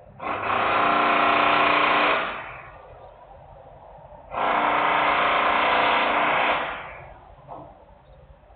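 Industrial machinery running in two loud bursts of about two seconds each, a pitched mechanical whine that starts abruptly and trails off, like a power tool or motor spinning up and down.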